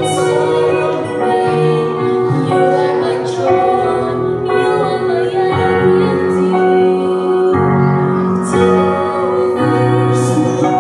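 A man and a woman singing a slow Christian worship song as a duet, with held notes over instrumental accompaniment.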